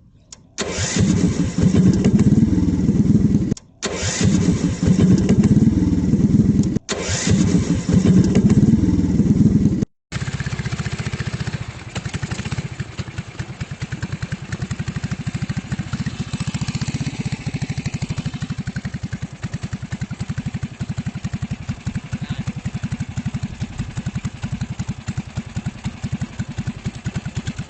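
Longtail boat engine revving loudly, its pitch rising and falling, with abrupt breaks. From about ten seconds in it runs steadily at lower revs with an even pulse.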